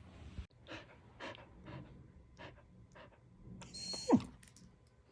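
Australian Shepherd panting in quick, even breaths, about two a second. About four seconds in comes a brief louder squeal that falls steeply in pitch.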